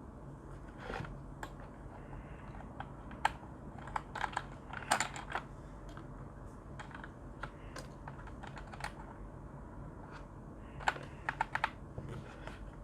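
Keychron K2 mechanical keyboard with brown switches being typed on: irregular key clicks, with two quick flurries of keystrokes, one a little before the middle and one near the end.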